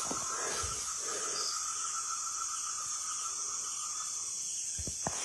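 Low, steady background hiss with a few faint high steady tones, and two soft clicks near the end.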